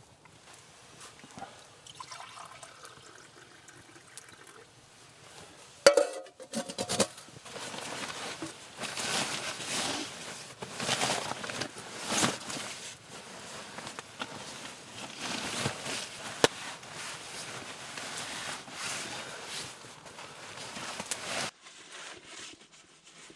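Water pouring and splashing, starting with a sharp knock about six seconds in and running unevenly until it cuts off suddenly near the end.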